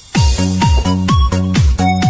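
Electronic dance music with a steady kick drum about twice a second and a held synth melody, cutting in sharply just after the start.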